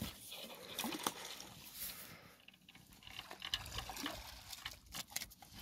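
A small hooked carp splashing in the shallow water at the bank as it is landed. Irregular splashes come with scattered small clicks and scrapes.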